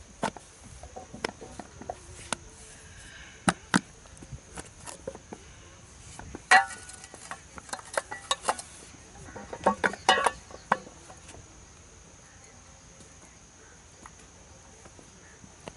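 Clay bricks being moulded by hand: scattered knocks and clanks of the brick mould as lumps of wet clay are thrown in, pressed and turned out onto the ground. Louder clusters of clanking come about six and ten seconds in, then it goes quieter.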